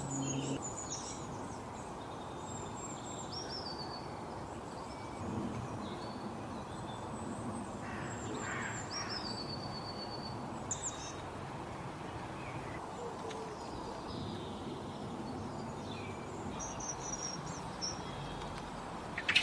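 Small birds chirping and whistling in short, high calls scattered throughout, over a steady background hiss.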